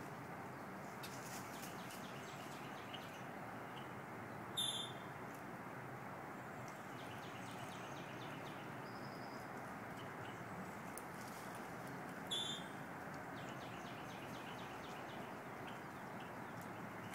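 Birds chirping in short, high calls, two of them louder about five seconds in and again about twelve seconds in, over a steady outdoor background hum.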